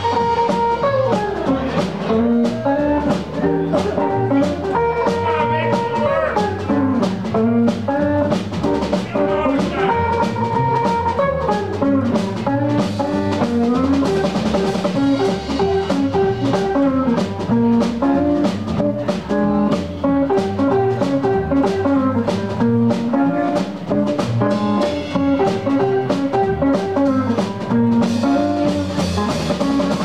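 Live band playing an upbeat dance number: a saxophone melody with held notes over electric guitar and a drum kit keeping a steady beat.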